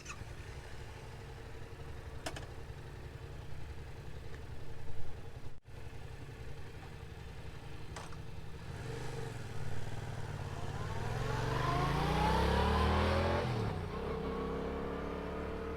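Yamaha MT-07's parallel-twin engine on its stock exhaust doing a fly-by: a faint steady engine note at first, then the note rises as the bike accelerates closer, loudest about three quarters of the way through, and the pitch drops as it passes and pulls away.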